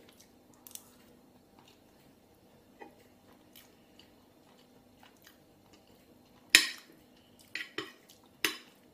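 Quiet chewing of a mouthful of rice. Then a metal spoon and fork clink on a plate: one sharp clink about two-thirds of the way through, followed by a few lighter ones.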